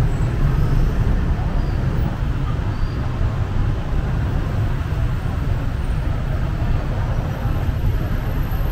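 Steady city street traffic noise: a continuous low rumble of cars and motorbikes on the road alongside, with no single vehicle standing out.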